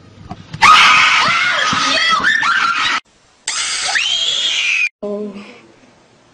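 Young people screaming: high, shrill shrieks for a couple of seconds, then, after a short break, another long shriek that rises and falls in pitch, fading to quiet near the end.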